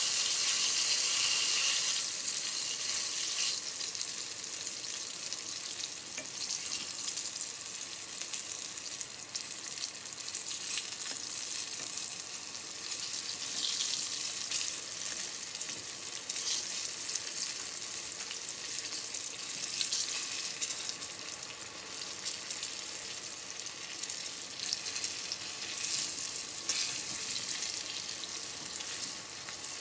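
Brown sauce sizzling and bubbling in a frying pan as fried tempura pieces are turned in it with chopsticks. It is a little louder in the first couple of seconds, then steady.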